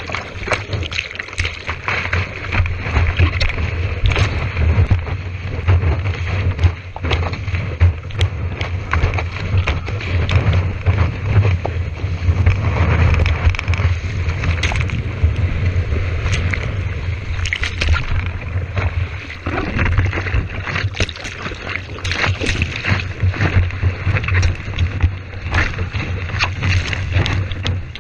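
Seawater rushing and splashing around a surfboard as it is paddled into a wave and ridden, heard from a GoPro on the board's nose. Wind and water buffet the microphone in a steady low rumble, with many sharp splashes.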